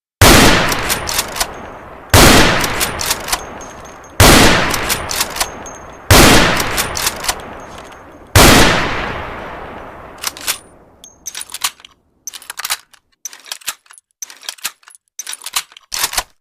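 Gewehr 98 bolt-action rifle in 7.92×57mm Mauser fired five times, about two seconds apart, each shot with a long echoing tail and short clicks after it as the bolt is cycled. After the last shot comes a run of short metallic clacks, the rifle's action being worked.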